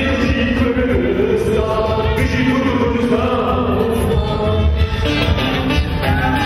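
Kurdish dance music played by a band, with a singing voice over it.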